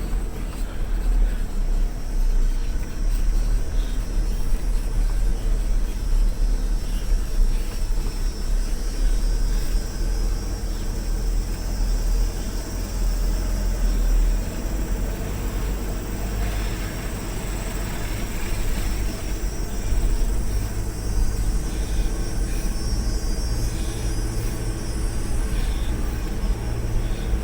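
A 4x4 vehicle's engine running steadily while driving, with a low drone and the rumble and rattle of a rough road.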